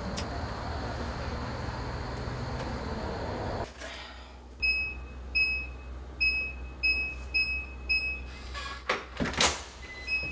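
A steady outdoor hum that cuts off about four seconds in, then a digital door lock's keypad beeping about seven times as a code is punched in, followed by a short rising chime and two loud clunks of the latch and handle as the door opens.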